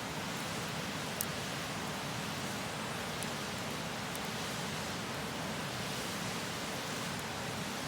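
Steady rush of a river flowing close by, with a few small pops from a wood campfire, the sharpest crack about a second in.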